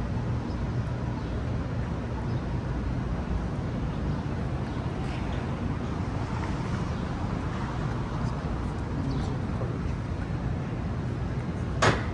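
Steady low rumble of city vehicle noise, with faint voices in the background and a single sharp knock near the end.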